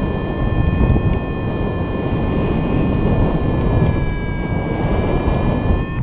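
Strong wind buffeting the microphone in flight under a paraglider, with a steady electronic tone from the flight instrument (variometer) that dips slightly in pitch about four seconds in, rises back, and stops near the end.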